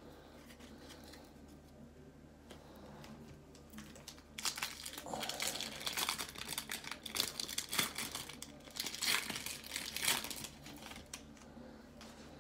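Foil wrapper of a baseball card pack being torn open and crinkled by hand. Faint handling comes first, then dense crinkling and tearing from about four seconds in until shortly before the end.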